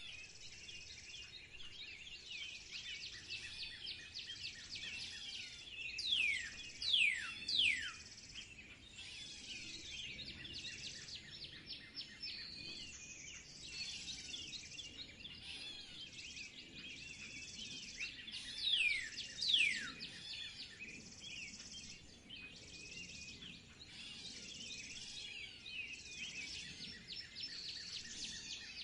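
Many small songbirds chirping and twittering continuously. Loud, steeply falling whistled notes come in groups, three about six seconds in and two about nineteen seconds in.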